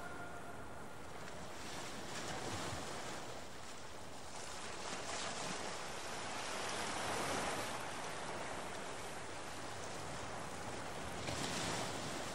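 Faint rushing noise that slowly swells and ebbs every few seconds, like distant surf.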